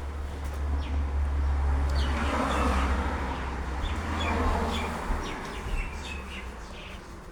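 Small birds chirping in short, high, repeated notes over a low rumble that swells for the first five seconds and then fades away.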